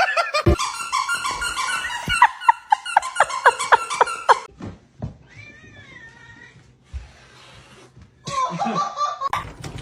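Domestic cat vocalizing: a quick series of short, repeated sounds, then a fainter wavering meow in the middle, and another call near the end.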